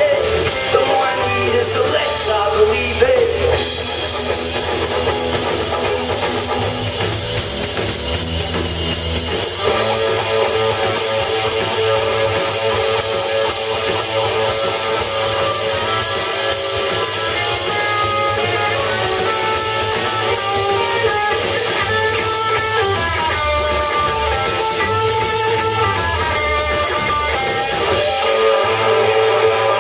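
Live rock band playing, with electric guitars to the fore over bass guitar and drum kit.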